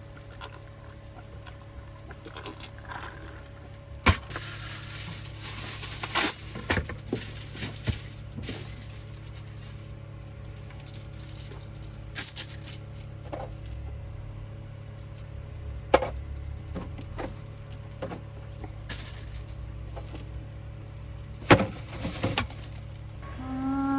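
Objects being handled: scattered clicks, clinks and short bursts of rustling and clattering over a steady low hum, busiest for a few seconds starting about four seconds in and again twice near the end.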